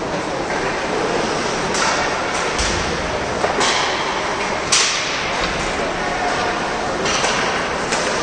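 Ice hockey play in an arena: a steady wash of skating and crowd noise, broken by several sharp cracks of sticks on the puck and the puck against the boards, the loudest near the middle.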